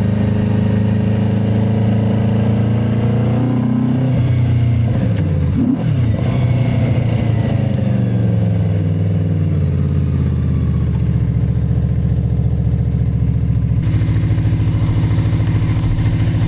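Benda Dark Flag 500 Commander's V4 engine running through its twin exhaust pipes. The engine note shifts briefly about four to six seconds in, falls away as the engine slows, and settles into a steady lower note near the end.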